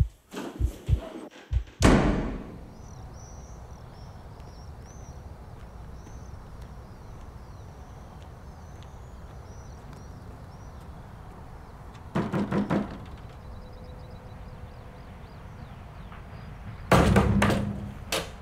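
Knuckles knocking on a wooden door: a quick run of raps about twelve seconds in, then a louder, more insistent run near the end. Earlier, a few heartbeat-like thumps, then a single loud thud at about two seconds, followed by a steady background with faint high chirps.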